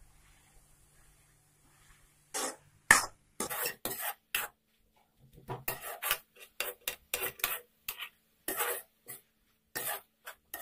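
Metal spoon scraping and scooping grated carrots around a metal kadai, in irregular rasping strokes a few a second that start about two seconds in. The carrots are being stirred in ghee to cook off their water.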